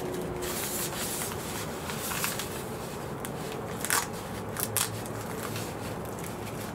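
Thin synthetic fabric of a portable air conditioner window seal rustling and crinkling as hands press it onto hook-and-loop tape along the window frame, with a few short, sharp crackles about four seconds in.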